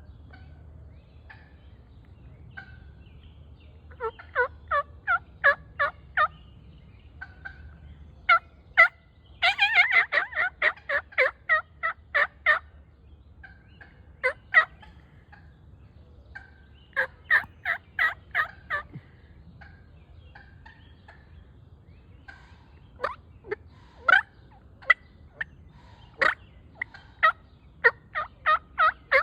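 Wild turkeys calling: runs of quick, repeated yelping notes come in several bursts, with a louder, denser rattling call about ten seconds in.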